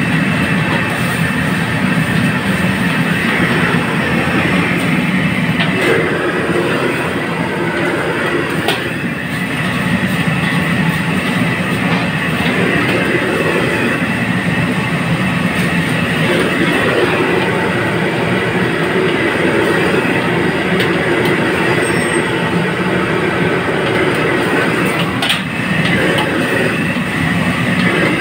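Steady roar of a commercial wok range's gas burner and kitchen exhaust, with the metal ladle scraping and knocking against the wok a few times as the dish is stirred.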